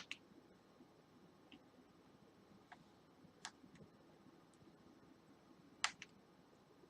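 Irregular sharp clicks of a small Phillips screwdriver bit slipping in the tiny star (Torx) screws of a phone case as they are tightened: the bit does not properly match the screw heads. The clicks come a second or so apart, the loudest near the end.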